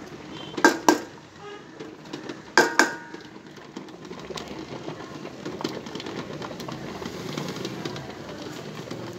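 Steel utensil clinking against a stainless steel bowl: two pairs of sharp ringing clinks in the first three seconds. These are followed by a run of faint ticks and scraping as the bowl is handled.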